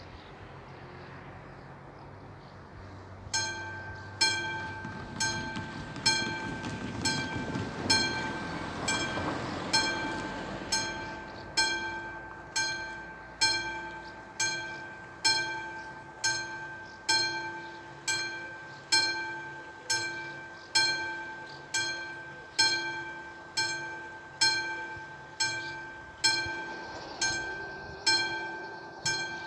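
Level-crossing warning bell starting up about three seconds in, then striking evenly a little over once a second, each ringing strike decaying before the next. It is the crossing warning of an approaching train, sounding as the red lights flash and the barriers come down.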